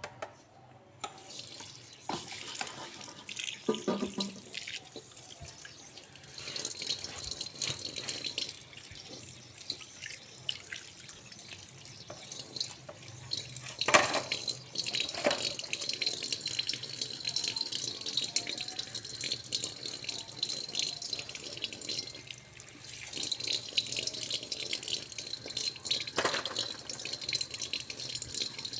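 Tap water running into a sink while a metal frying pan is rinsed and scrubbed, with small scraping clicks and a few louder knocks of the pan, one about halfway through and one near the end.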